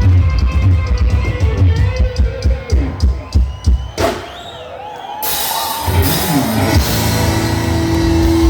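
Live band music with a drum kit beat and guitar; the band drops down briefly about four seconds in, then comes back in with a long held note.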